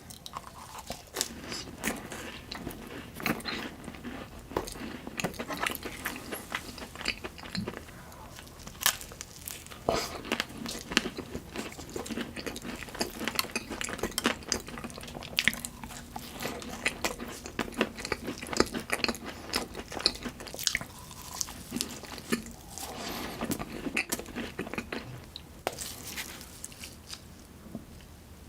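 Close-miked eating of chocolate desserts: repeated crunchy bites and chewing, with crisp cracks and crackles mixed with softer, wetter chewing.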